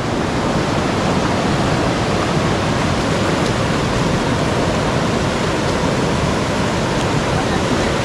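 Steady rushing of a rocky hill stream's rapids, muddy white water pouring fast over boulders.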